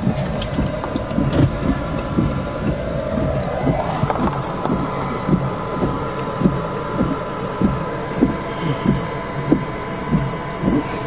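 Low rumbling noise heard from inside a car, with a soft low thump repeating about twice a second and a faint steady high whine.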